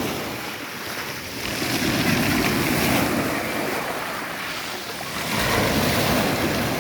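Black Sea waves washing onto the shore, the surf swelling twice, with wind buffeting the microphone.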